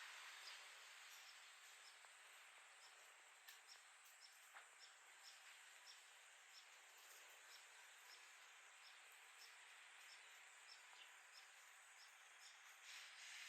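Near silence outdoors: a faint insect chirping at an even pace, about two short high chirps a second, over a soft steady hiss.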